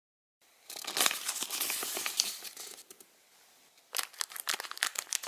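Clear plastic bag crinkling as it is handled, then a run of sharp crackles and snips about four seconds in as scissors cut the bag open.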